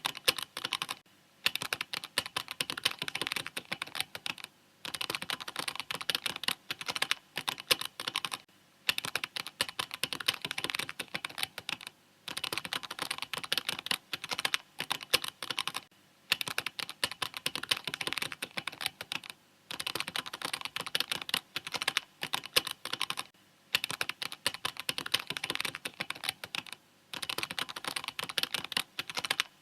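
Mechanical keyboard being typed on: fast, dense key clicks in runs of a few seconds, broken by brief pauses.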